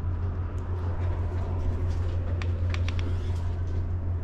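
A steady low rumble, with a few faint clicks a little past the middle.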